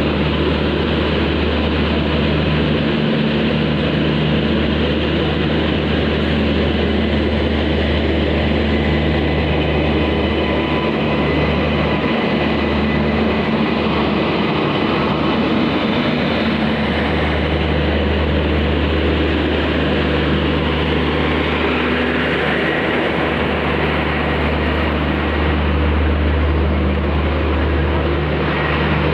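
Train's engine machinery running with a steady, loud low drone and a faint higher whine above it.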